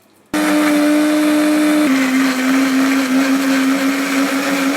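Electric blender switched on and running steadily, blending mint, coriander, green capsicum, yogurt and water into a sauce. It starts abruptly, and its motor pitch drops a little about two seconds in as it takes up the load.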